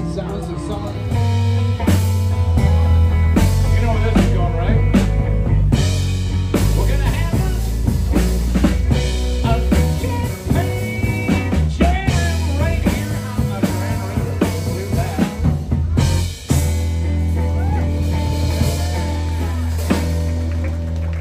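Live rock band playing: electric guitar, bass guitar and drum kit with a steady beat and sung vocals over them. The music drops out for a moment about sixteen seconds in and then carries on.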